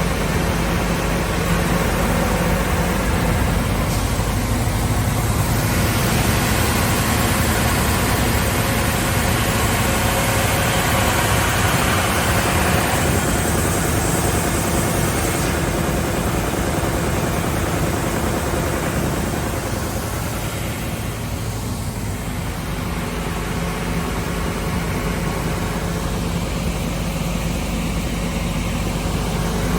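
SCM Sandya 3S wide-belt sander running with material fed through it, its 18.5 kW sanding-unit motor holding a steady hum under the sanding noise. The sanding noise grows louder from about ten to fifteen seconds in, then eases around twenty seconds in.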